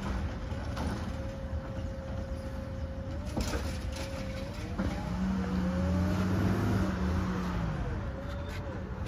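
Automated side-loader garbage truck working the curb: a steady whine from its hydraulics with a knock about three and a half seconds in, then its diesel engine pulls louder from about five seconds in as the truck moves up to the next carts, easing off near the end.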